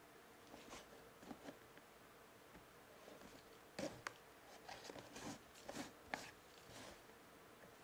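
A table knife scraping and catching as it slits the seal of a small cardboard box, with light taps and rustles as the box is handled. The scrapes come in short scattered strokes, the loudest just before the middle and several more a second or two later.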